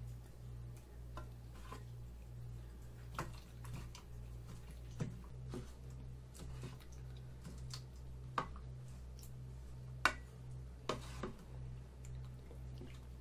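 Wooden spoon stirring rice into kimchi stew in a metal pot: scattered light knocks and scrapes of the spoon against the pot, the sharpest about ten seconds in. A steady low electrical hum lies underneath.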